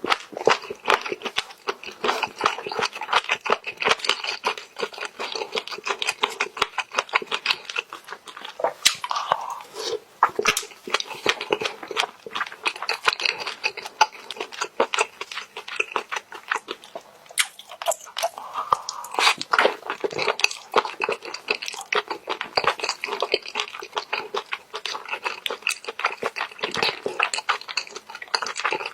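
A person chewing spicy stir-fried squid close to the microphone, with fast, continuous clicking mouth sounds throughout.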